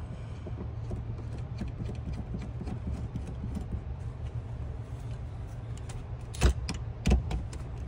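Small metal clicks and rattles of seat-belt anchor hardware being fitted to its mounting bolt on the pillar, over a steady low hum. Two sharp knocks near the end, about half a second apart.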